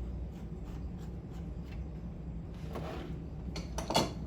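Light clicks and rubbing of a washing machine supply line's metal coupling being handled and threaded on by hand, with a sharper click about four seconds in, over a steady low hum.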